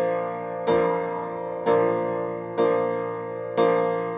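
Background music: four piano chords struck about a second apart, each fading before the next.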